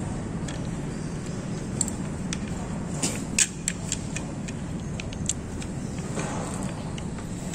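Sharp metallic clicks and clinks as the quill feed handle hub is fitted back onto a milling machine head, a cluster about three seconds in being the loudest, over a steady low hum.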